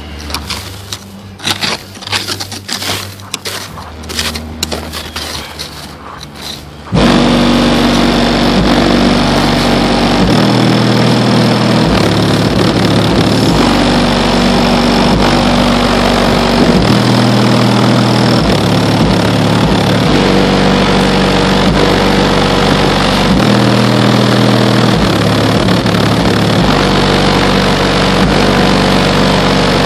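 Scraping and handling noise, then about seven seconds in, loud bass-heavy music comes in from a car audio system with two Kicker L5 12-inch subwoofers. Deep bass notes shift in a repeating pattern every few seconds.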